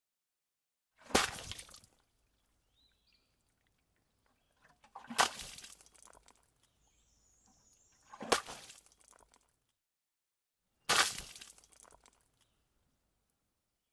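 Four sharp breaking impacts a few seconds apart, each trailing off in a short crackling rattle.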